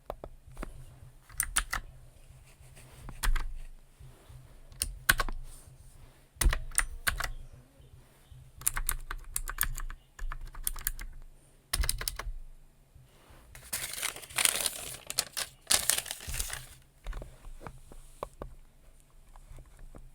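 Typing on a computer keyboard in short runs of key clicks separated by pauses. About two-thirds of the way through comes a longer, denser run of noise.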